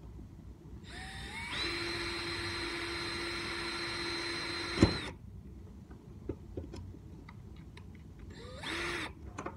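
Cordless drill with a small 5/64-inch bit drilling a starter hole. The motor spins up with a rising whine about a second in and runs steadily for about three seconds. A sharp knock comes just before it stops, and a brief second burst follows near the end.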